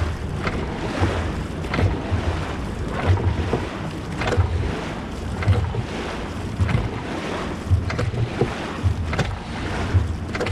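Dragon boat paddles catching and pulling through the water in unison, a splash-and-surge about once a second at racing pace, over steady water rush and wind on the microphone.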